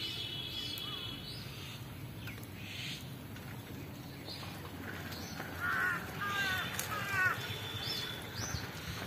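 Birds chirping and calling over a faint outdoor background hum, with a run of louder, falling calls about six to seven seconds in.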